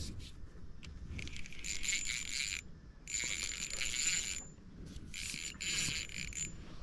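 Spinning reel being cranked in three bursts of about a second each, a hissing whir with a thin steady whine, as a hooked crappie is wound in.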